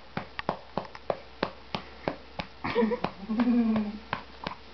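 Hand patting a baby's back to bring up a burp, steady soft pats about three a second, with a short vocal sound about halfway through.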